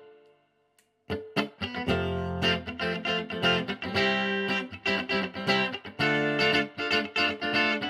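Tomson Spirit super-strat electric guitar played through a clean amp tone: after a pause of about a second, quick picked single notes and chords resume and keep going.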